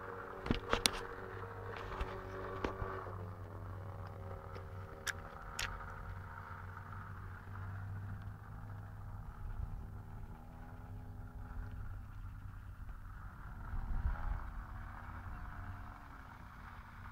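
Radio-controlled Piper J-3 Cub model aeroplane in flight, its engine droning steadily. The pitch drops about three seconds in as it passes and shifts again later with throttle and distance. A few sharp clicks come near the start.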